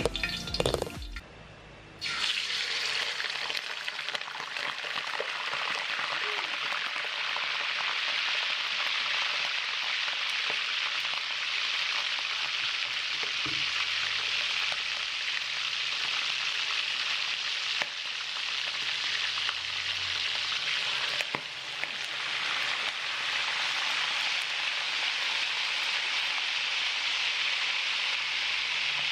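Marinated pork pata (pork hock) slices deep-frying in hot oil in a pan: a steady, loud sizzle that starts about two seconds in. A few sharp pops of spattering oil come later on.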